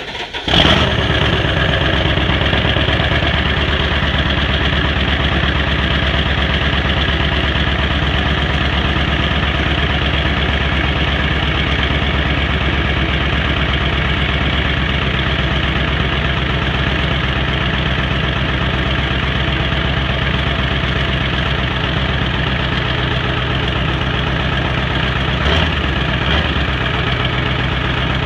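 2001 Ford F-250's 7.3 Powerstroke V8 turbodiesel catching at the end of a cold-start crank, about half a second in, then idling steadily and loudly. One brief louder blip comes about 25 seconds in.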